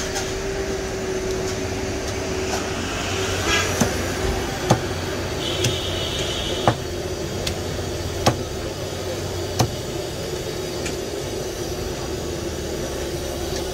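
Cleaver chopping fried fish on a wooden tree-trunk chopping block: six or seven sharp knocks a second or two apart, over a steady background hum.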